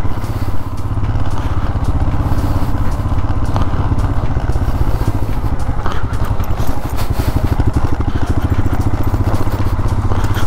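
Motorcycle engine running steadily under way: a dense low engine note with fast, even pulses and no change in pace.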